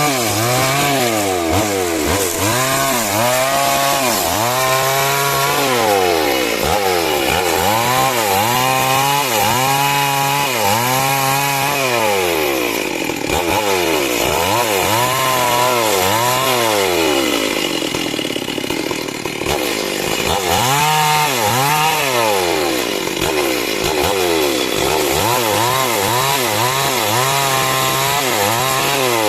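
Two-stroke chainsaw cutting timber, its engine pitch rising and falling about once a second as the throttle and load change. The pitch evens out for a few seconds past the middle before the rising and falling resumes.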